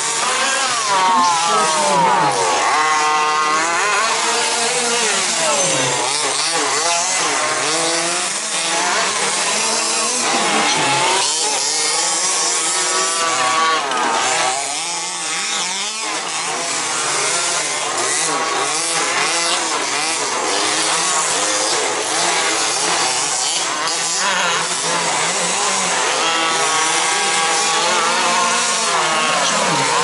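Several electric 2WD remote-control buggies racing, their motors whining up and down in pitch as they speed up and slow down, over a steady hiss.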